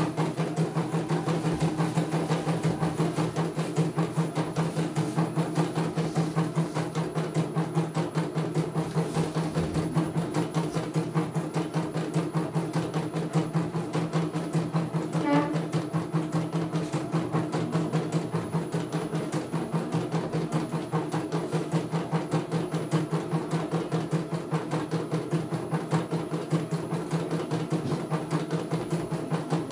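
CNY E900 computerized embroidery machine stitching a design: a rapid, even needle rhythm over a steady motor hum.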